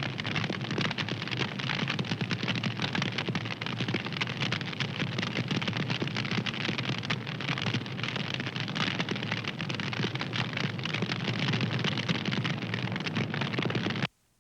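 Wood fire crackling: a dense, steady run of small pops and snaps over a soft hiss. The sound cuts out abruptly for a split second near the end.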